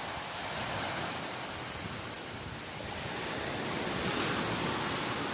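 Sea waves washing onto a beach, a steady rush of surf that swells a little about four seconds in.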